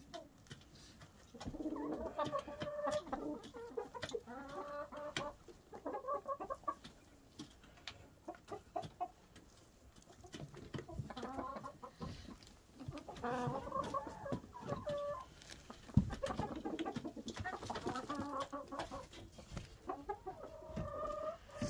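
Hens clucking in repeated bouts of several calls, with short pauses between. A single sharp knock comes about sixteen seconds in.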